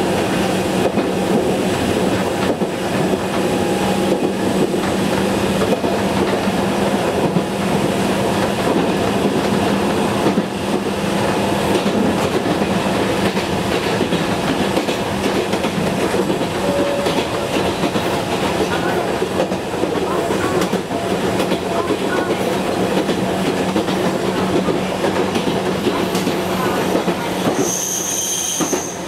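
Fukui Railway Series 880 electric railcar running, heard from the driver's cab: steady rolling noise of wheels on rail with a low motor hum that fades about two-thirds of the way through. The straight air brake is applied in the last seconds, and a brief high squeal sounds near the end.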